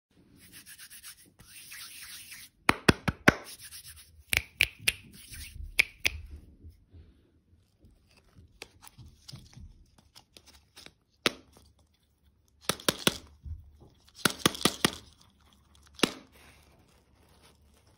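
Plastic-wrapped toy lollipops handled by hand: the wrappers crinkle and rustle, with clusters of sharp clicks and crackles separated by quieter pauses.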